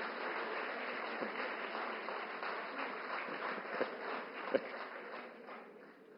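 Large audience applauding, the clapping thinning out and fading away near the end.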